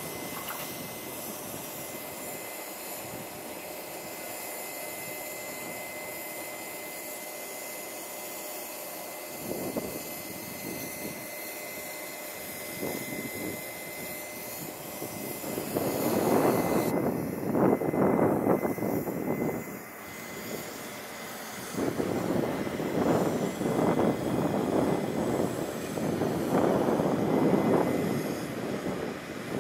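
Electric locomotives running at a station: a steady mechanical hum with a faint high whine, then from about 16 seconds in a louder running noise that swells and falls several times.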